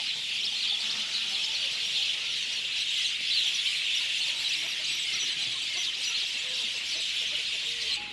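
Many small birds chirping at once in a dense, steady chorus of high, overlapping chirps.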